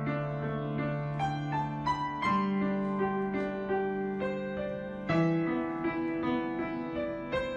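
Background piano music: a slow melody of single notes over long held bass notes.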